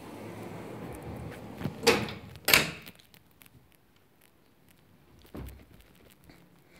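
Bathroom door being opened and shut: a soft rushing noise, then two sharp knocks about two-thirds of a second apart as the latch and door go, and a dull low thump about five seconds in.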